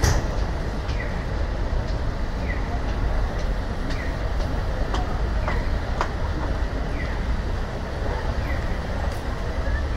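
Busy city street din of traffic and crowd, with a pedestrian crossing's audible signal chirping about once a second.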